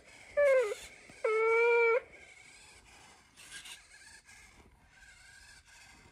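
metaDog robot dog making dog-like vocal sounds from its speaker: a short cry falling in pitch, then a longer, steady one. Fainter noises follow as its head moves.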